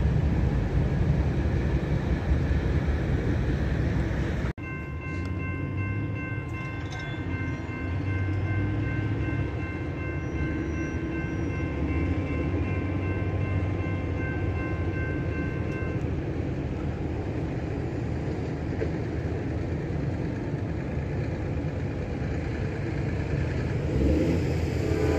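Freight train rolling by with a steady rumble and rail noise, broken by an abrupt cut about four and a half seconds in. A thin, steady high tone sounds over the rumble through the middle stretch. Near the end a locomotive horn starts to blow.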